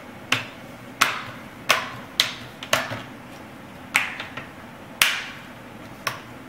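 Plastic clips of a laptop's front screen bezel snapping into place one after another as it is pressed down around the edges: about eight sharp clicks at uneven intervals, some followed by a smaller click.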